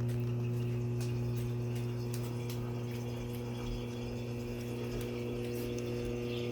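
Dishwasher drain pump motor running with a steady hum and faint clicks as it pumps the water out. Its worn impeller, wedged back onto the shaft with a folded bread tie, is now gripping and draining.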